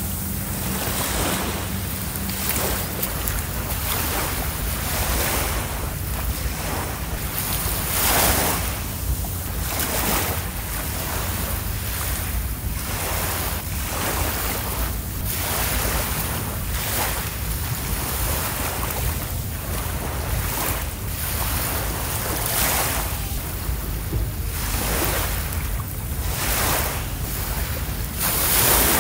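Small waves washing on a sandy beach, surging every second or two, with wind rumbling on the microphone.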